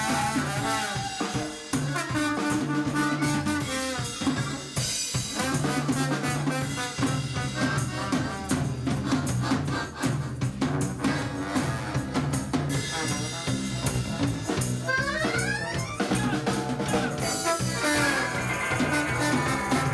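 Live band playing an instrumental passage: trombone over drum kit, electric guitar and accordion at a driving ska-rock beat, with a rising glide about three-quarters of the way through.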